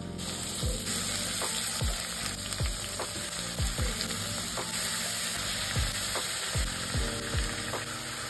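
Marinated chicken pieces sizzling loudly as they hit hot oil and fried onions in a kadai over a high flame; the sizzle starts suddenly as the first pieces go in. A low thump sounds about once a second as more pieces drop into the pan.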